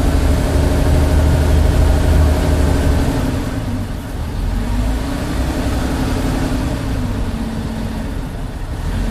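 A river ferry boat's engine running loud and steady under way. Its pitch dips and rises again about four seconds in.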